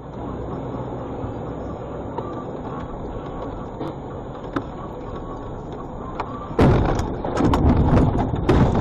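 Steady road and engine noise inside a vehicle driving on a snowy road, then about six and a half seconds in, a sudden loud run of bangs and rattles as the vehicle crashes off the road into the snow.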